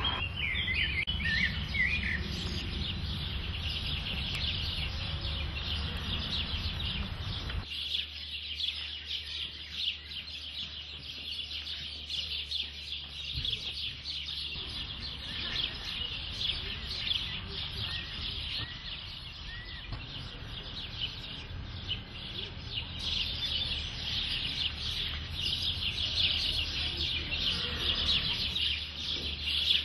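Outdoor birdsong: many small birds chirping and calling in a steady high-pitched chorus, with a few clear chirps about a second in.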